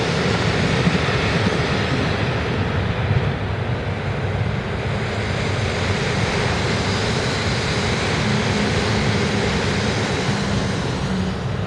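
Container wagons of a freight train and a JR West 321 series electric commuter train passing on adjacent tracks: a steady rumble and rush of steel wheels on rail. A low hum joins in over the last few seconds.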